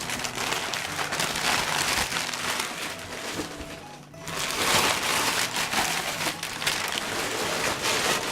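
Package being opened by hand: dense crinkling and tearing of packaging, with a short lull about four seconds in. Faint music plays underneath.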